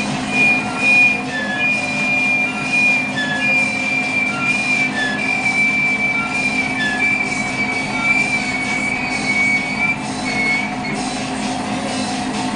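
Metal lathe running under power while a single-point threading tool takes a very fine finishing scrape along a 60-degree screw thread. The tool gives a high, steady squeal with short chirps repeating at an even beat, a little more than once a second, over the lathe's motor hum.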